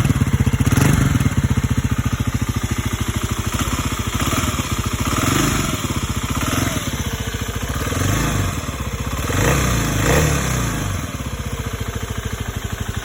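2026 Kawasaki KLX300's single-cylinder four-stroke engine idling, with a few gentle throttle blips about a second in, around five seconds and near ten seconds. The revs are kept low because the motor is brand new and still breaking in, and the bike runs quiet.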